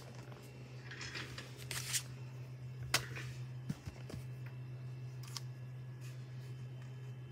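Rustling handling noise as the camera is moved over a cluttered desk, with one sharp click about three seconds in and a few softer ticks after it, over a steady low hum.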